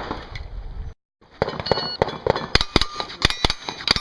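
Rapid 9mm shots from a Hi-Point 995TS carbine, several a second, with steel targets ringing as they are hit. The sound cuts out briefly about a second in, just before the string of shots begins.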